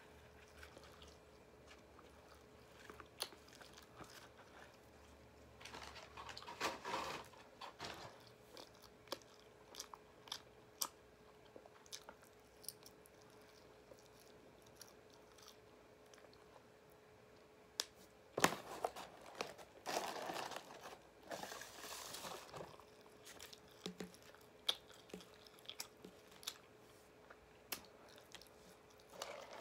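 A person chewing and biting crunchy fried chicken close to the microphone, with scattered small crunches and clicks and two longer bouts of crunching, about a quarter of the way in and again just past the middle. A faint steady hum sits underneath.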